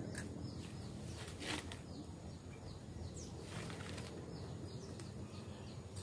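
Small bird chirping steadily in short, high, falling notes, two or three a second. Two brief rustling bursts come about a second and a half and three and a half seconds in, fitting the tethered sooty-headed bulbul lure bird flapping its wings.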